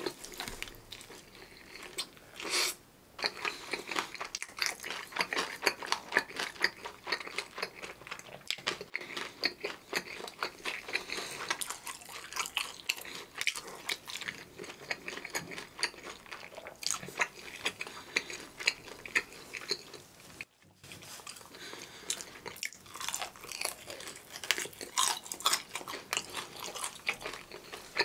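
Crunching and chewing of a seasoned fried chicken drumstick: the crisp coated skin crackles between the teeth in dense, irregular crunches, with a brief pause a little past twenty seconds in.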